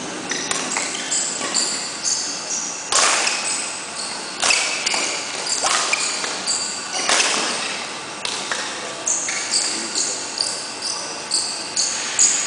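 Badminton rally: racket strings striking the shuttlecock with sharp cracks about every second and a half, and many short high squeaks of court shoes on the mat between them.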